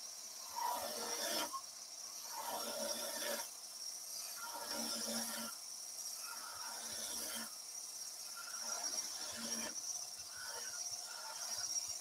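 Tiny skew chisel cutting a softwood dowel spinning on a wood lathe at about 2000 rpm: a light hissing scrape that comes in repeated passes of a second or two, over a steady high whine.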